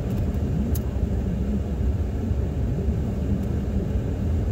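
Steady low vehicle rumble heard inside a car's cabin, with one sharp click about three-quarters of a second in.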